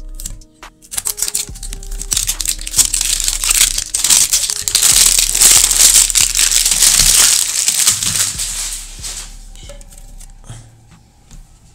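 Plastic packaging on a metal perfume can crinkling and tearing as it is pulled open by hand, a dense crackle that builds about a second in, is loudest in the middle and dies away near the end.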